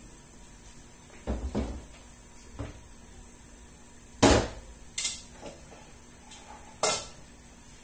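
Kitchenware being handled: a handful of knocks and clatters as pots, containers and dishes are picked up and set down, the loudest a little after four seconds in.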